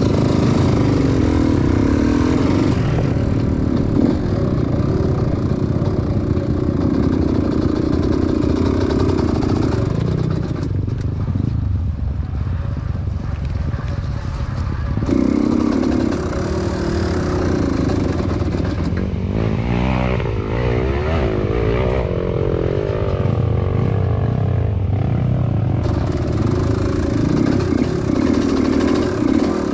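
Dirt bike engine running under throttle on a muddy trail, easing off for a few seconds about ten seconds in, then revving up and down quickly around twenty seconds in.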